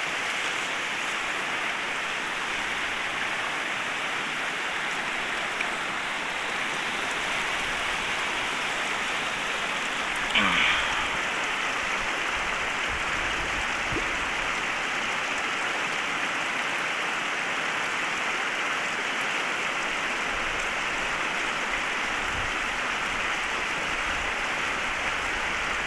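Shallow, fast river rushing over stones and rocks: a steady wash of water noise. A short, louder sound stands out about ten seconds in.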